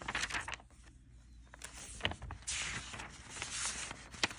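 Pages of a paper notebook being turned by hand: several separate rustles of paper with a few sharp ticks, the longest rustle in the second half.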